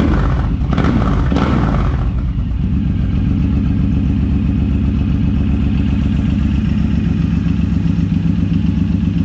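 Suzuki Boulevard M109R's big V-twin engine blipped a few times in the first two seconds, then settling into a steady idle.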